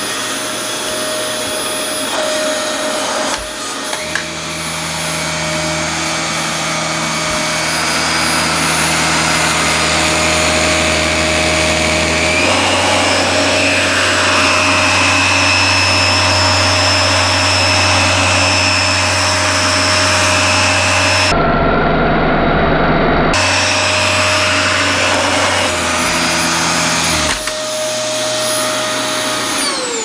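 Dyson DC24 upright vacuum cleaner running with its brush bar engaged for carpet: a steady motor whine, with a lower hum joining about four seconds in. Near the end it falls in pitch as it winds down after being switched off.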